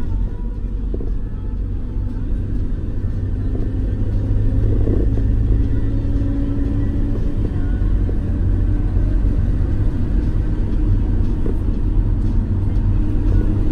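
Steady low rumble of engine and tyre noise, heard from inside a moving tour bus.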